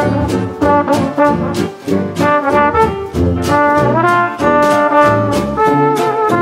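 Background music: upbeat brass band with trombone and trumpet over a steady beat.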